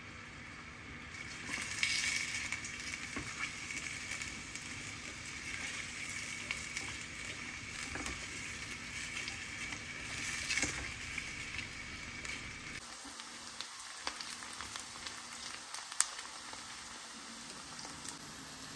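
Sliced onions, carrots and garlic sizzling in olive oil in a stainless steel pot, starting about a second and a half in and loudest at first, while a silicone spatula stirs them, with scattered clicks of the spatula against the pot.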